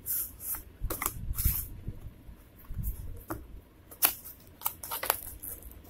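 Cardboard packaging being handled: a printed sleeve slid off an inner cardboard box and the box's flaps opened, giving irregular rustles, scrapes and light clicks with a few dull knocks.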